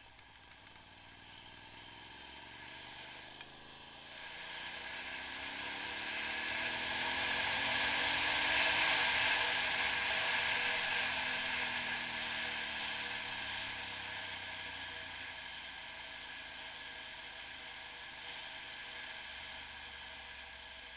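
Motorcycle engine climbing in pitch as the bike accelerates, with wind and road noise on the microphone building up and loudest about eight or nine seconds in. The engine pitch then falls and the wind noise eases as the bike slows.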